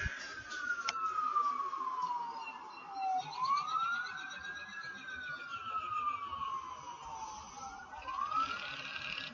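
An emergency siren wailing: a single tone that sweeps up quickly and slides slowly back down, about once every four to five seconds. A sharp click is heard about a second in.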